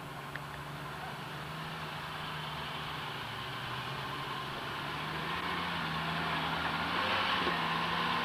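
Jeep Wrangler YJ engine running at low revs as it crawls up a dirt ledge, growing steadily louder as it comes closer, with the revs lifting slightly about five seconds in.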